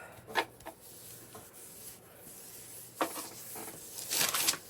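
A baby wipe rubbing and rustling over hands and a work surface, with a few light taps, and a louder scrubbing stretch about four seconds in.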